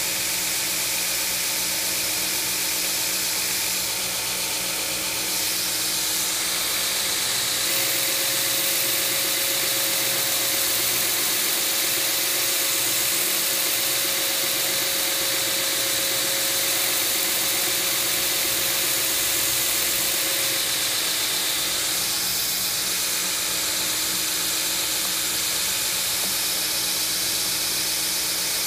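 A 2x72 belt grinder with a ceramic belt runs steadily. From about 8 to 21 seconds in, a steel straight razor blank is pressed against the belt on its 4-inch contact wheel, adding a louder grinding hiss as the hollow grind is cut.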